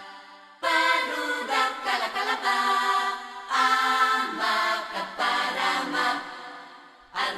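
Vocal music: voices chanting in long held notes, in phrases that swell and fade. A new phrase starts under a second in, another about three and a half seconds in, and the sound fades away near the end.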